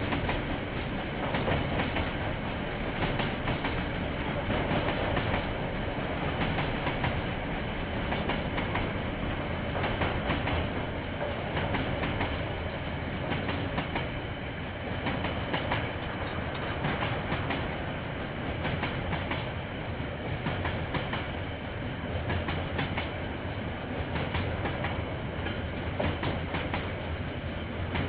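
A KiwiRail train rolling steadily past: a continuous rumble of wheels on rail with rapid clicking over the rail joints. It is heard through a security camera's microphone, which has a dull top end.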